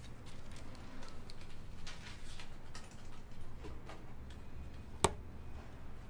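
Small desk sounds: papers shifted by hand and a pen moving over drawing paper along a ruler, giving soft scratches and ticks over a low room hum, with one sharp click about five seconds in.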